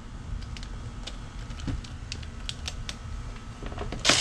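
Scattered light clicks and taps of plastic grille parts and a cordless driver being handled. Near the end a Ridgid cordless drill-driver starts running, backing out a Phillips screw from the grille.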